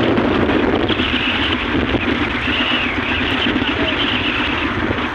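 Steady running of a small motorized outrigger fishing boat's engine, mixed with strong wind buffeting the microphone and choppy waves.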